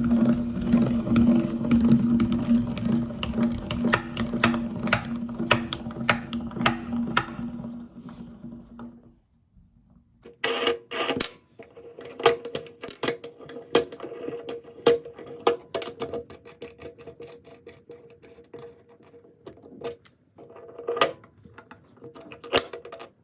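Electric meat grinder running, its motor humming under irregular crunching and clicking as candle wax is forced through. The motor stops about nine seconds in; a second later a higher, steadier hum starts again with scattered sharp clicks and cracks.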